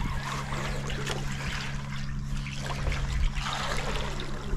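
Water trickling and sloshing at the side of a fishing boat as a lure is drawn through the water beside the hull, over a steady low hum.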